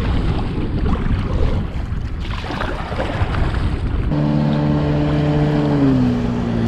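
Wind buffeting the microphone, with water noise. About four seconds in, a steady engine drone comes in and drops to a lower pitch about two seconds later.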